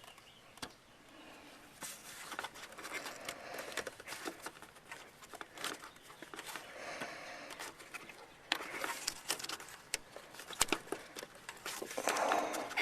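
Rubbing, rustling and small clicks of a rubber dust boot being pushed and worked by hand back onto the back of a car headlight housing, in irregular bursts that grow louder near the end.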